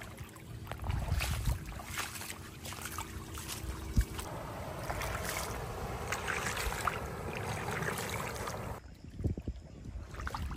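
Shallow rainwater runoff flowing and rippling along a flooded dirt track, with wind rumbling on the microphone. The rush of water cuts off sharply about nine seconds in, leaving a few soft thumps.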